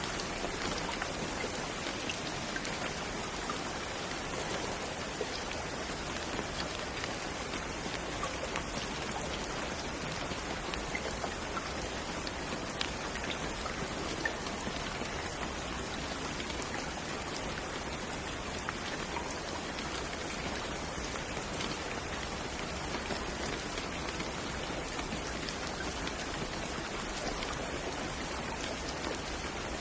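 Steady rain falling on a surface, an even hiss with many small scattered drop patters.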